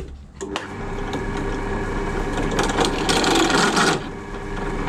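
Bench pillar drill running up to a steady motor hum. From about two and a half to four seconds in, a louder cutting noise comes as a steel bracket is pressed against the spinning step drill bit, using its next size up as a countersink to take the burr off a drilled hole.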